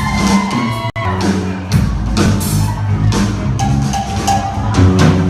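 Live band playing rock-and-roll music, with a heavy bass line and regular drum hits. The sound drops out for an instant about a second in.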